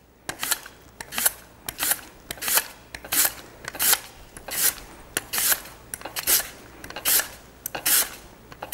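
Sweet potato being pushed across a mandoline slicer's blade, each stroke a short rasping scrape as a thin slice is cut off, repeating evenly a little under a second apart.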